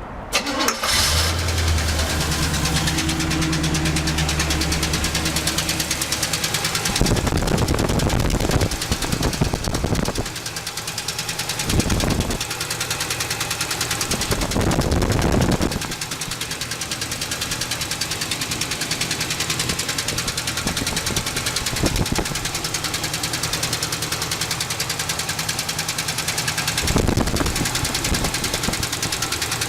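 Oldsmobile 350 V8 started and running with a valve cover off, with a loud, fast, even knocking from the top end, louder in a few brief spells when the engine is raised in speed. The owner traces it to a pushrod he believes is busted.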